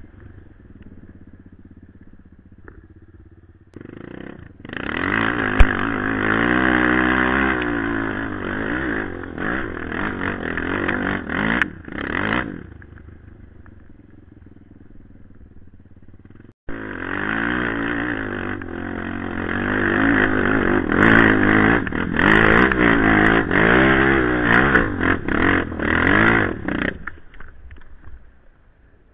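Quad (ATV) engine heard from on board: running low, then revving hard in rising and falling waves for about eight seconds and dropping back. After an abrupt cut it revs hard again for about ten seconds before fading away near the end.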